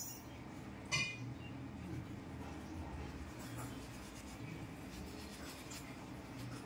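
Soft rubbing of a cotton wad wiped over the face of a copper coin held in the palm, with one light metallic clink about a second in.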